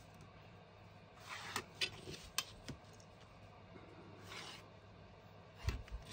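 Faint scraping and light tapping of cardstock being marked up for cutting. Two short scratchy strokes and a few small clicks, then a dull knock near the end.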